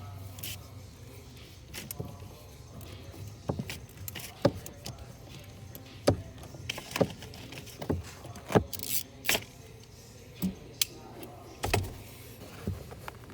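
Socket wrench with extension and swivel socket working a 12 mm bolt at the steering column U-joint: irregular sharp metallic clicks and clinks of the tool on the bolt.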